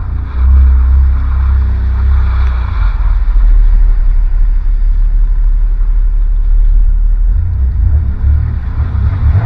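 Jet ski engine running under way across the water, with a heavy low rumble and wind buffeting the microphone. The rumble turns choppier near the end.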